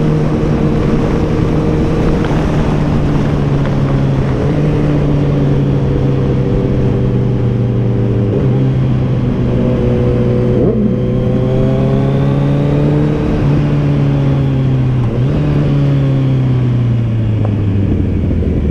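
Kawasaki Z900's inline-four engine heard from the rider's seat while cruising. Its note holds steady with a few small jumps in revs, then falls away near the end as the bike slows, over a steady rush of wind.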